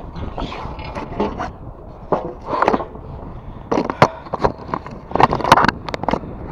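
A salvaged metal railing section scraping and knocking on concrete as it is handled and moved, giving irregular scrapes and sharp knocks.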